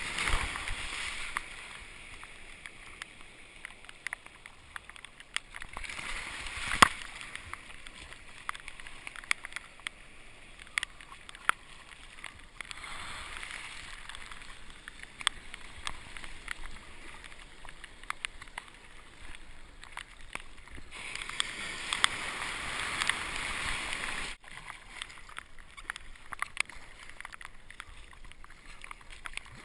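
Water rushing and sloshing around a sea kayak surfing freighter wake waves, with sharp splashes and clicks from paddle strokes. The rush swells several times as waves break around the hull, then drops away suddenly late on.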